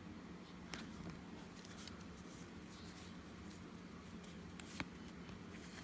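Faint rustling and a few soft clicks of Pokémon trading cards and booster pack being handled, over a low steady room hum.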